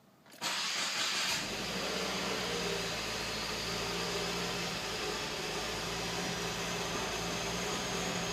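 Subaru WRX's FA20DIT turbocharged flat-four engine cranking and catching about half a second in, with a short flare for about a second before settling into a steady cold idle. The idle is rough because the engine is cold.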